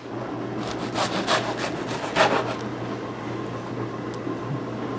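A long knife sawing through the crisp crust of a freshly baked baguette on a wooden board: a few rasping back-and-forth strokes in the first couple of seconds, then quieter cutting.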